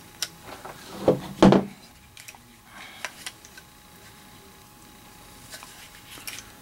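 Small handling noises from working on a Glock pistol's trigger parts: a sharp click, then two louder knocks about a second and a half in, followed by scattered light clicks.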